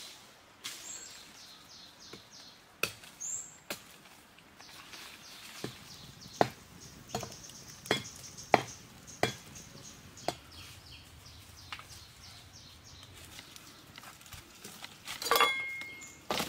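Footsteps crunching on dry leaf litter, then an open wood campfire crackling with a string of sharp pops. A high, repeated chirping runs through the first half, and there is a louder burst of rustling near the end.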